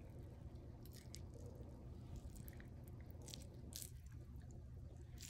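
Faint, soft ticks and crinkles of food being handled while wraps are assembled, over a low steady hum.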